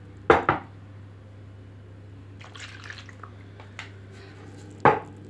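Milk being poured into a mixing bowl of risen yeast and oil: loud short splashes twice in quick succession near the start and once more near the end, with quieter liquid sounds between.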